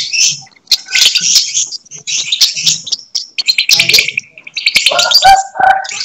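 Lovebird singing its rapid, high chattering song in bursts about a second long, with short breaks between them. This is the continuous trilling song judged in the lovebird 'konslet' class.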